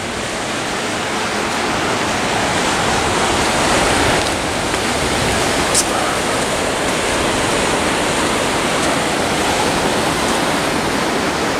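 Ocean surf breaking on a rocky shore: a steady, loud rushing wash that swells slightly a few seconds in.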